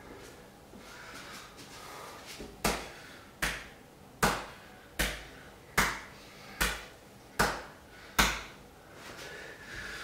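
A man beating his bare chest with his fist: eight sharp thumps at an even pace, a little under one a second, starting about two and a half seconds in.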